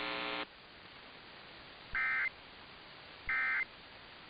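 Emergency Alert System end-of-message data bursts: two short, harsh warbling digital squawks about a second and a third apart, marking the end of the alert. A buzzy steady tone cuts off about half a second in, before the first burst.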